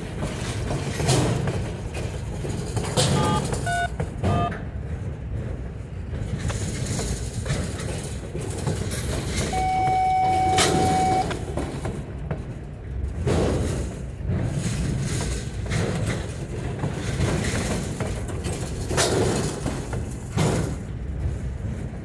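Freight cars of a passing train rolling by close up: a steady rumble of steel wheels on rail, broken by repeated sharp clacks of wheels striking rail joints or crossings. Short squeals of wheels on rail come a few seconds in, and a single high squeal is held for about a second and a half around ten seconds in.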